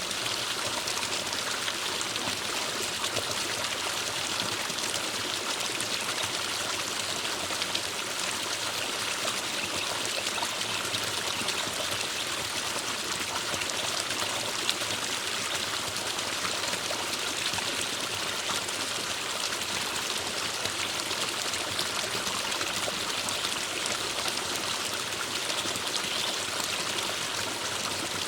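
Forest stream running steadily, an even wash of water noise with no breaks or changes.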